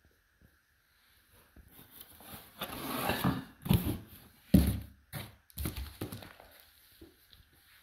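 A small cardboard box being handled, rustling and scraping, with two sharp thumps near the middle as it is knocked and set down on a wooden floor, then a few lighter knocks.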